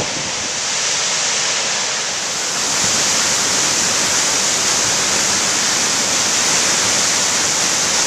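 High Force waterfall on the River Tees, a steady rush of falling water that grows a little louder about three seconds in.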